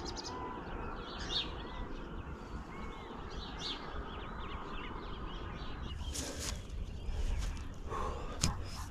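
Birds calling in short chirps at dawn, over a steady low rumble of wind on the microphone, with a few brief knocks or rustles about six seconds in and near the end.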